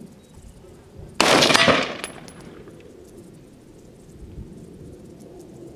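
A single shot from an AR-15 rifle with an 18-inch heavy barrel in .223/5.56, about a second in: a sharp report that rings out briefly and fades.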